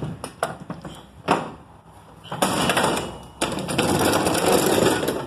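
Sharp metal knocks and clanks as a steel floor jack is handled onto a truck's diamond-plate steel deck, followed from about two seconds in by a steady rushing noise.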